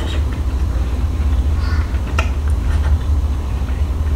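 A steady low hum with light eating noises over it, including a single click of a spoon against a plate about two seconds in.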